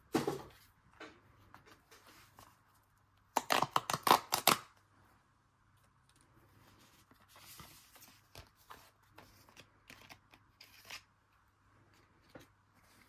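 Pokémon trading cards and their foil booster pack being handled by hand: a loud burst of rapid crackling and clicking about three and a half seconds in, then softer rustles and clicks as the cards are flicked through and moved about.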